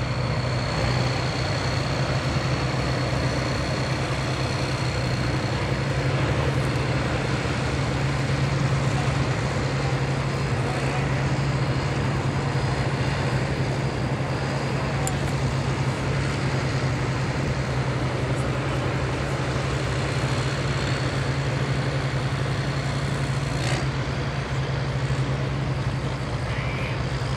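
Tractor engine running steadily without revving, a constant low drone.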